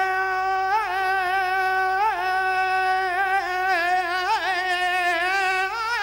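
A male copla singer's voice holding one long note on the syllable 'de', with short ornamental turns about one and two seconds in, a run of quicker melismatic turns near the middle, and vibrato toward the end.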